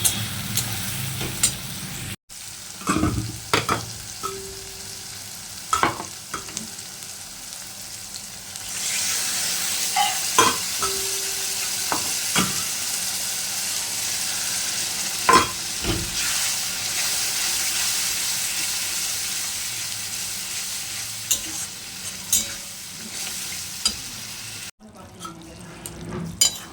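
Food sizzling in a hot pan while a spatula stirs it, with scattered sharp knocks and scrapes of the utensil against the pan. The sizzle gets louder about nine seconds in.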